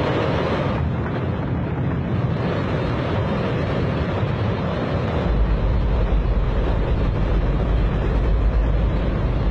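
Liquid-hydrogen/liquid-oxygen rocket engine firing on a static test stand: a continuous, very loud roar. A deep rumble beneath it grows stronger about five seconds in.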